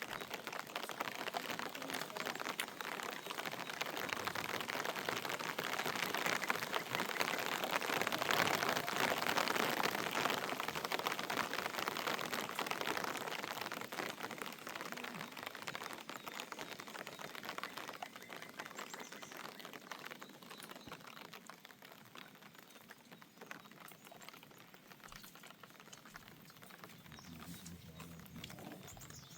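Rain falling, a dense patter of drops that grows louder toward the middle and then slowly dies away.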